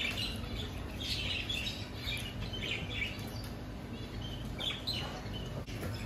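Pet birds chirping and calling, a scatter of short, high chirps through the whole stretch, over a low steady hum.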